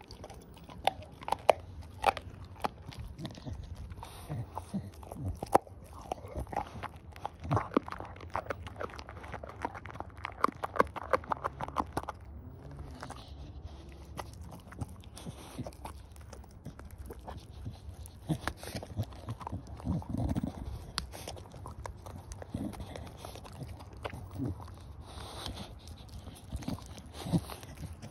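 Staffordshire bull terrier gnawing on a raw pork trotter: irregular sharp crunches and bites, coming thick and fast from about eight to twelve seconds in.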